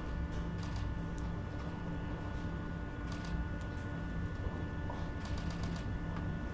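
Open-air ambience: a steady low rumble with faint constant hums, and a few light clicks scattered through it.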